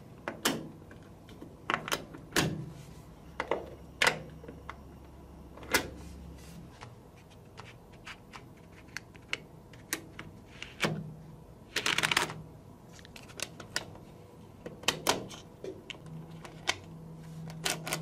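Small magnetic metal balls clicking and snapping together in irregular, sharp taps as blocks of them are pressed and joined by hand, with a plastic card scraping against them. There is one longer rasp near the middle.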